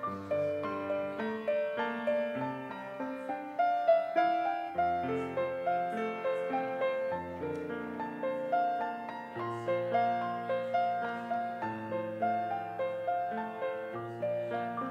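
Piano music: a flowing melody of struck notes, each fading away, over lower bass notes.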